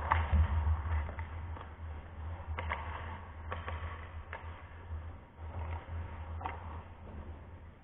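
Ice hockey play on the rink: a scatter of sharp clacks and knocks from sticks, puck and skates on the ice, over a steady low rumble.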